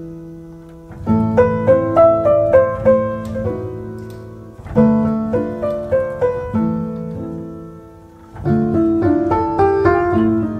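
Background piano music: phrases of struck notes that fade away, a new phrase starting about every three to four seconds.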